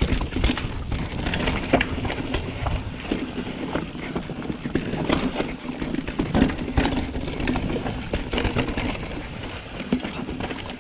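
Downhill mountain bike clattering over rough trail: tyres on dirt, with frequent sharp knocks and rattles from the frame and chain as it hits rocks and roots.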